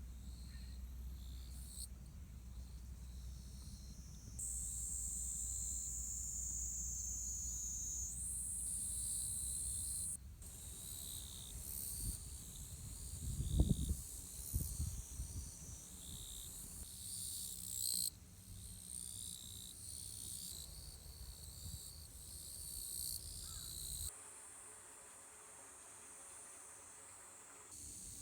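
High-pitched insect chirping that changes suddenly several times, over a low rumble, with a single thud about halfway through.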